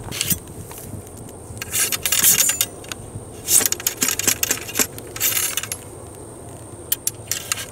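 A muzzle-loading M1842 musket being loaded by hand: a run of short metallic scrapes, rattles and clinks as the cartridge is worked into the muzzle and the steel ramrod is handled in the barrel and drawn out.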